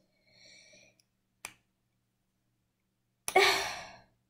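A faint breath, then a single sharp click from the small plastic kit parts being handled about a second and a half in. Near the end comes a loud, sudden sigh that fades out over under a second.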